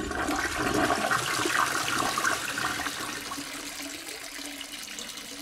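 Toilet flushing: a rush of water, loudest for the first three seconds or so, then dying down to a quieter steady run.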